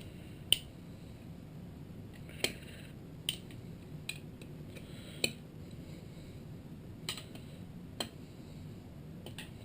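Hand tools clinking on the engine's alternator cover bolts as they are loosened: about eight sharp metallic clicks at irregular intervals over a faint low hum.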